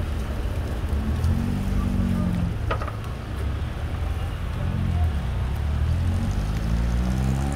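Street traffic: a car engine running close by and rising in pitch twice as it pulls away, over a steady low rumble, with a single sharp click about three seconds in.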